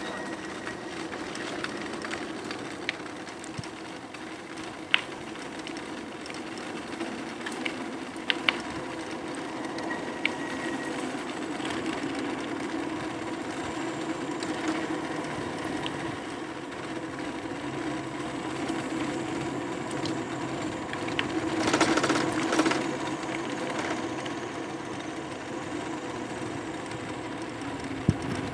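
Electric bike being ridden: the steady whir of its motor and drivetrain, with a few sharp clicks or rattles. About three-quarters of the way through comes a louder rush of noise lasting a second or two.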